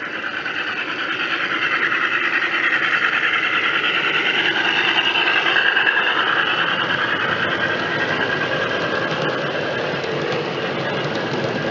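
A G scale model diesel locomotive and its hopper wagons running past on outdoor garden track: a continuous mechanical whine over a fast, fine rattle of wheels on the rails, growing louder as the train nears, peaking about halfway through and easing a little after.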